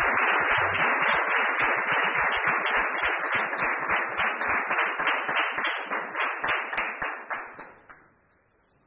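Audience applauding, dense at first, then thinning out and dying away near the end.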